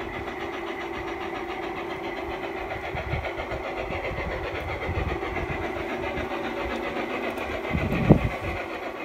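G-scale model locomotives running, with a steady engine-like drone and held tones throughout, and a short louder burst about eight seconds in.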